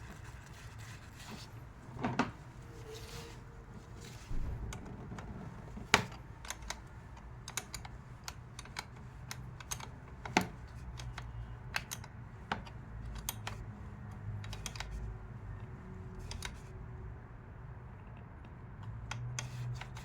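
Irregular small clicks and taps of hands working wires into a butt connector with tools.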